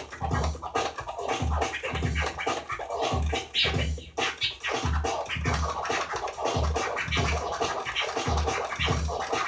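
DJ scratching on a Gemini CDT-05 hybrid CD turntable, quick choppy cuts and pitch swipes of a sample over a steady electronic beat with an even kick drum.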